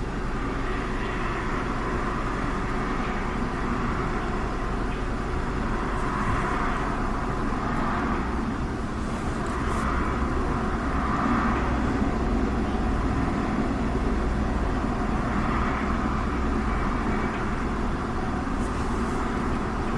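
Steady car noise heard from inside the cabin: a low hum with a hiss that swells and eases several times.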